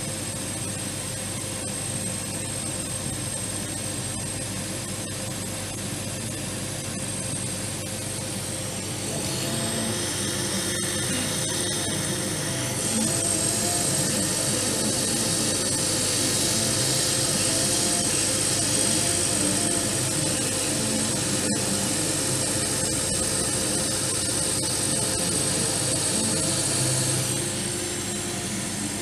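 Steady whir of a 50 W Chinese CO2 laser cutter's fans and pumps running, with a thin high whine. It grows louder about nine seconds in and drops back near the end.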